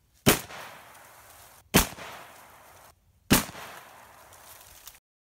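Three shots from a Mossberg JM Pro 12-gauge shotgun, about a second and a half apart, each with a short echoing tail. The sound cuts off abruptly near the end.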